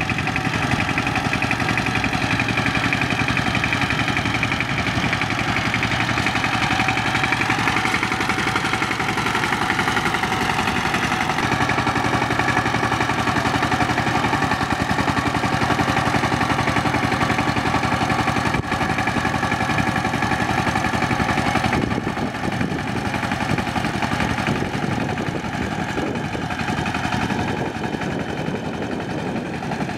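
Diesel power tiller's single-cylinder engine running steadily under load, with a fast, even beat. Its pitch rises and falls slightly about eight to eleven seconds in, and the sound shifts about two-thirds of the way through.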